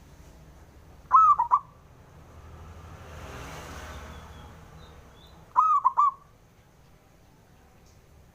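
Zebra dove (perkutut) cooing twice, each call a quick phrase of three or four pitched notes lasting about half a second, the two calls roughly four and a half seconds apart. A soft rushing noise rises and fades between the calls.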